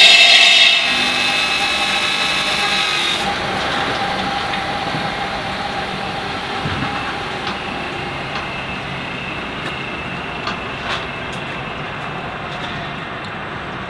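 Water-cooled diamond circular saw blade of a CNC bridge saw cutting through granite. A loud pitched whine drops away about a second in, leaving a quieter, steady grinding hiss with a few faint ticks.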